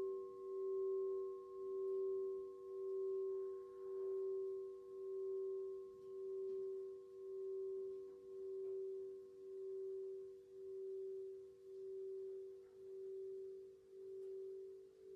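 A Gorin hensho temple bell rings on in a long, slowly fading tone that swells and dips about once a second. Faint campfire crackles sound under it.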